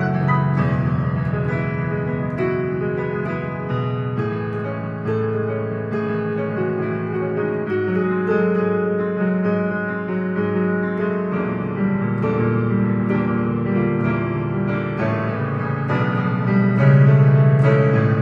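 Piano playing a piece of music: sustained chords in the low register under a melody, with new notes struck every second or so.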